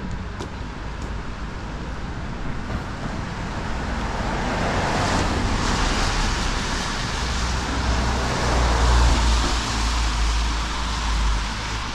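Traffic noise from a car going by: a low rumble with a hiss of tyres that swells over several seconds, is loudest about three-quarters of the way through, then eases off.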